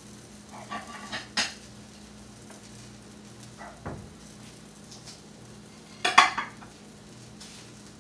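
Kitchen clatter of utensils and dishes being handled: a few clinks about a second in, a light knock near four seconds, and the loudest clatter about six seconds in, over a steady low hum.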